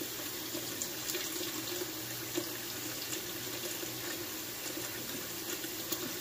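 Kitchen faucet running steadily, its stream splashing into a glass bowl of water and shrimp in a stainless steel sink, with a few faint clicks.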